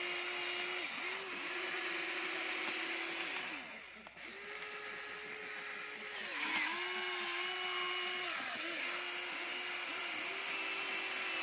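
Small electric gear motors of a Huina remote-control toy excavator whining as it works its arm and bucket through mud. The pitch holds steady with short dips as the motors stop and restart, and there is a brief pause about four seconds in. A second, higher motor whine joins partway through.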